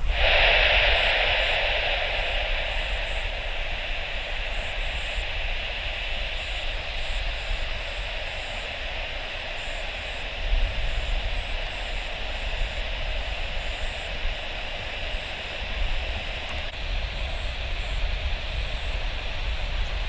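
Twin-engine jet airliner at takeoff power on its takeoff roll and climb-out, a steady broad roar of engine noise that eases slowly over the first few seconds, with a low rumble underneath.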